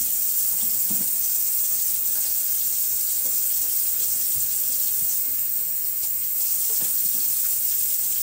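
Kitchen faucet running steadily into the sink as the sink is rinsed out, with a few faint knocks.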